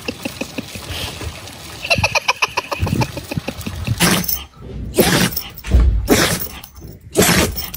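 Quick, rapid splashing of shallow pond water as a large white dog wades and paws at it. After about three and a half seconds this gives way to four loud, rough bursts about a second apart.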